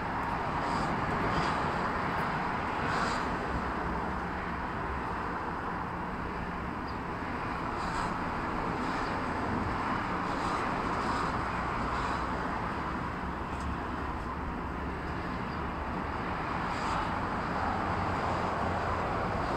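Steady outdoor street noise, a wash of distant traffic, with faint short high sounds every second or two.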